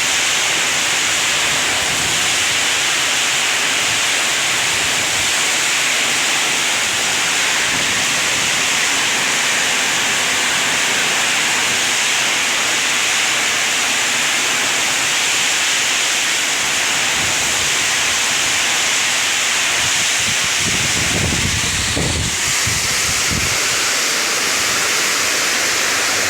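Heavy rain pouring steadily in strong wind, a loud unbroken hiss, with a few low rumbles near the end.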